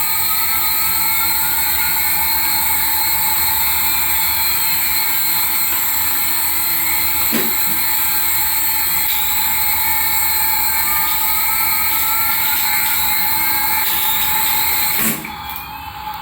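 Remote-control toy aircraft running with a steady high-pitched whine, with slow rising glides in pitch; the sound drops away sharply about a second before the end.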